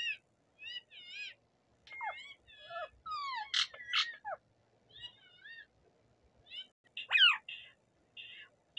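Rose-ringed parakeet calling in a varied series of short warbling notes and sliding whistles. The loudest is a sharp rising-then-falling screech about seven seconds in, followed by a quick run of short chattering notes near the end.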